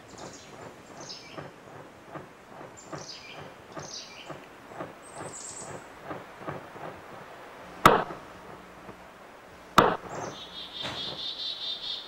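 Franklin's grouse courtship flutter flight: soft, evenly spaced wingbeat knocks, then two sharp wing claps about two seconds apart, the loudest sounds. High thin bird chirps come and go, and a buzzy high trill sounds near the end.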